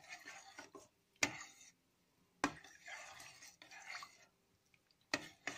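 A spoon stirring chopped vegetables in liquid in a steel pot: soft swishing, with four sharp clinks of the spoon against the pot, about a second apart.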